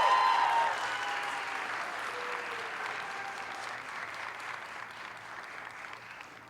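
Audience applauding, with a few cheers at the start, then dying away.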